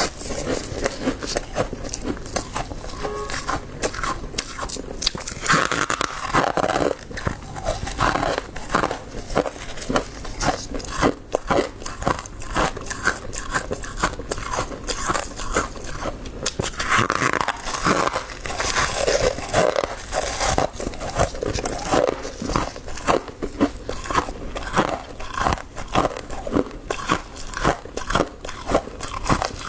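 Soft freezer frost being bitten and chewed, a dense, continuous run of crunches and crackles.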